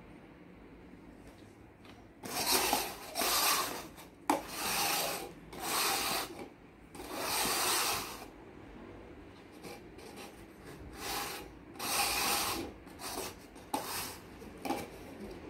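Plastic cups being slid and scraped across a tabletop as they are shuffled: a series of rasping swishes, each under a second, with an occasional light tap as a cup is set down.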